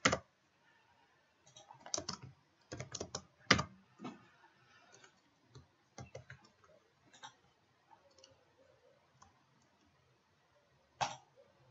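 Typing on a computer keyboard in short bursts of key clicks, thinning to scattered single clicks, with one more click near the end.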